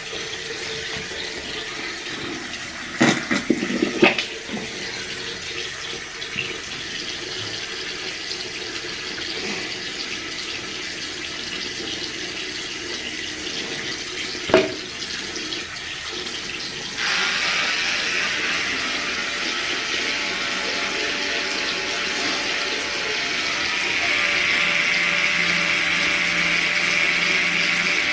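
Water running steadily in a bathroom, with a few knocks a few seconds in and another about halfway. The flow grows louder and brighter about two-thirds of the way through.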